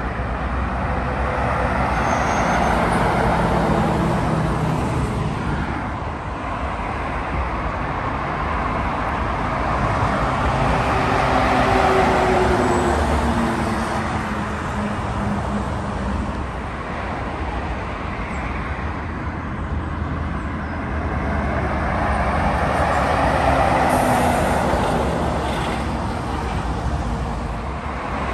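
Cabover lorries and other traffic passing close by, with diesel engine rumble and tyre noise swelling up and fading as each goes past, about three times.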